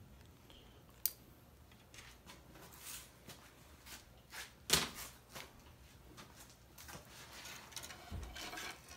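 Hands handling wires and small parts of a homemade animatronic: scattered small clicks and rustles, with a sharp click about a second in and a louder knock near the middle.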